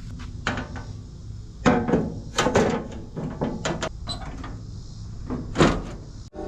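Irregular metallic knocks and clanks of a skid steer's sheet-metal body panels being handled and fitted back on, with the loudest knocks about two seconds in and again near the end.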